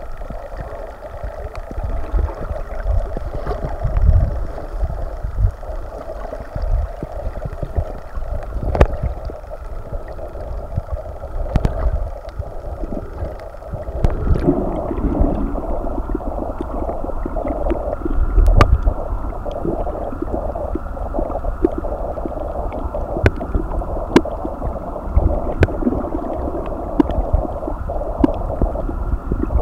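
Underwater sound picked up by a snorkeler's camera: a steady, muffled water rush with low gurgling surges and scattered sharp clicks, growing louder about halfway through.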